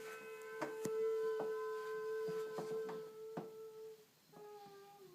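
A person holding one long, steady hummed or voiced note, which stops about four seconds in, followed by a shorter note near the end; a few sharp clicks sound over it.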